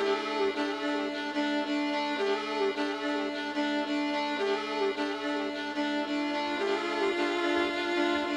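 Instrumental folk music led by fiddle over sustained chords, with a short figure repeating steadily.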